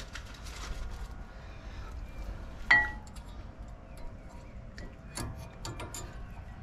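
New front brake pads being fitted by hand into the caliper bracket's spring clips: one sharp metallic clink with a brief ring nearly three seconds in, then a few light clicks and taps in the second half as the outer pad is seated.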